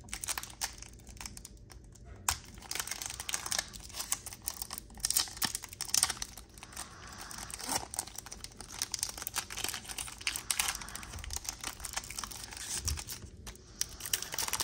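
Foil wrapper of a Pokémon trading-card booster pack being torn open and crinkled by hand, a dense run of irregular crackles and clicks.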